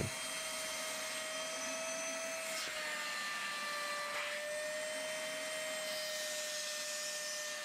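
Caramba 5.0 wet/dry vacuum sucking cleaning liquid out of a fabric car seat through its hose nozzle, which is pressed hard into the upholstery. It makes a steady whine over a rush of air.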